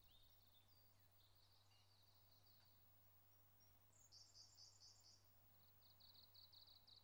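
Near silence: faint background birdsong, with several short high trills of rapidly repeated chirps, the brightest about four seconds in, over a low steady hum.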